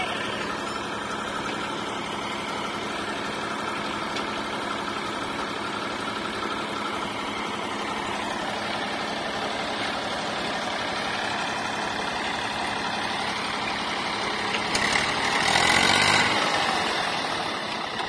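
Eicher 551 tractor's diesel engine running steadily while the hydraulics tip its loaded trolley. Near the end a louder rushing noise swells and fades over about two seconds.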